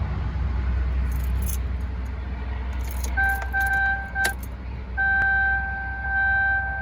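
LLY Duramax 6.6-litre V8 turbodiesel idling with a low steady rumble, and a steady turbo whistle that comes in about three seconds in, drops out for a moment and returns. Light jingling rattles, like keys, come twice in the first half.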